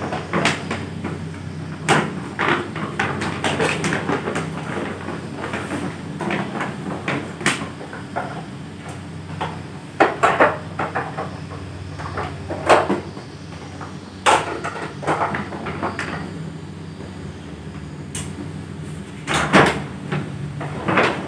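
Clear plastic AC washing cover being stretched and tucked around a wall-mounted split air-conditioner indoor unit: irregular rustling and crinkling of the plastic sheet with scattered knocks against the unit's casing.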